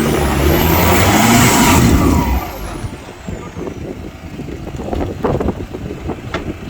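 Off-road 4x4 engine revving hard under load, its pitch rising, then dropping away about two seconds in.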